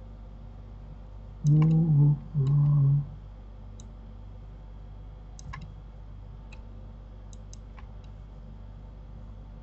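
Scattered clicks of a computer mouse, about a dozen, irregularly spaced, over a steady low hum. About a second and a half in, a man's voice sounds briefly twice without clear words.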